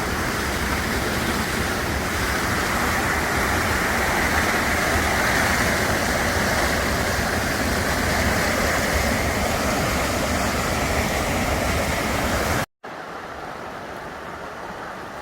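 Rushing water flowing steadily. Near the end it cuts off abruptly and gives way to a quieter steady rush.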